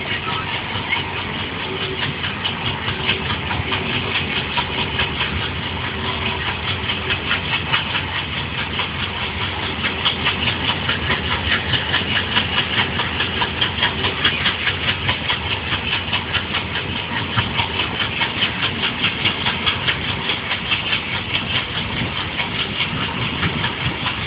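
A rake of Indian Railways coaches rolling past close by: a continuous rumble of steel wheels and bogies on the track, with a rapid rhythmic clatter.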